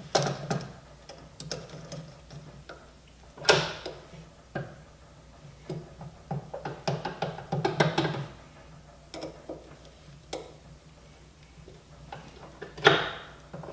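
Scattered clicks and clinks of metal parts and hand tools as a short shifter is fitted, the loudest knock about three and a half seconds in and a quick run of clicks around the middle, with music playing underneath.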